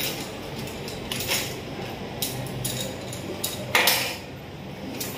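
Plastic base-ten blocks clicking and clattering as they are handled in and out of a plastic box and set on a table: several separate knocks, the loudest a little under four seconds in.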